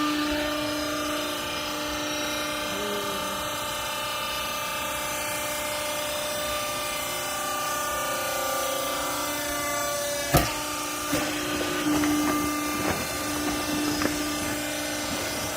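Vertical hydraulic clothing baler running, its motor and hydraulic pump giving a steady pitched hum. A sharp knock about ten seconds in, followed by a few lighter knocks.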